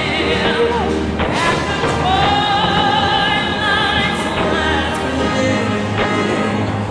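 Music with a singing voice in an operatic style: long held notes with vibrato over accompaniment. A few brief sharp cracks sound faintly under it.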